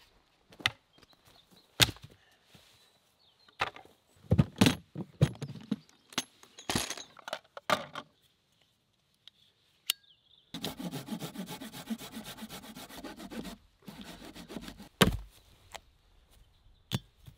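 Pieces of firewood knocking and clattering as they are handled and dropped. Near the middle comes a hand saw cutting a branch, quick even rasping strokes for about three seconds, and then a few more sharp wooden knocks.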